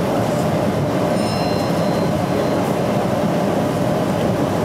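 Steady running noise of a Metra Electric commuter train heard from inside the car as it travels along the track. A faint high-pitched tone with a few pitches rings for a second or so starting about a second in.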